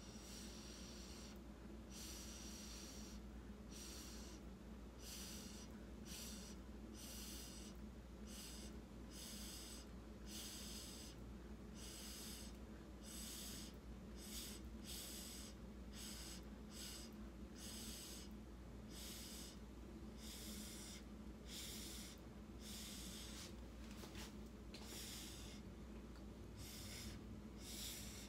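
Short puffs of breath blown through a drinking straw onto wet acrylic paint, repeated a little under two times a second and faint. The paint is being blown across the canvas to spread it and open up cells.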